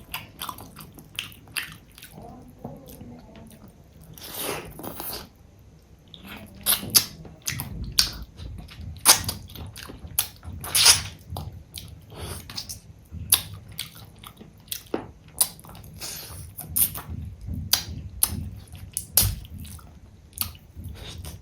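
Close-up chewing and wet mouth smacks of a person eating fish curry with rice, with frequent sharp clicks throughout.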